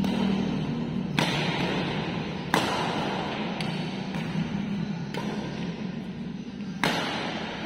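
Badminton rackets striking the shuttlecock during a rally: three sharp smacks, about a second in, a second and a half later, and near the end, each ringing on in an echoing hall.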